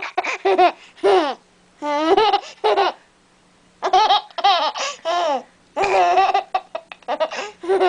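A baby laughing in about five high-pitched fits of giggles and squeals, with short pauses between them.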